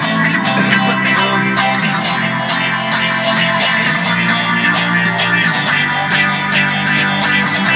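Solid-body electric guitar being played, strummed in a steady rhythm with repeated sharp strokes.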